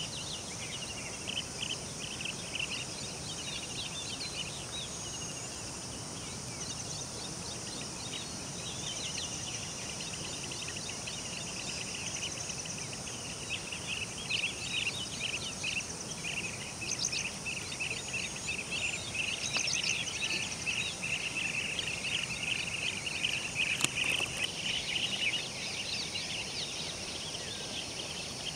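A flock of blue-tailed bee-eaters calling over and over in short rolling trills, getting busier and louder from about the middle on, over a steady high insect hiss. One sharp click comes a few seconds before the end.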